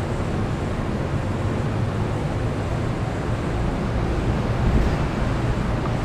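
Steady low rumble of industrial machinery, swelling slightly a little under five seconds in.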